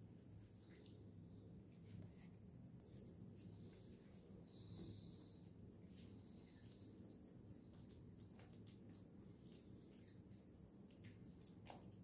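Faint, steady high-pitched trill of insects, unbroken throughout, over a low hum and a few soft clicks.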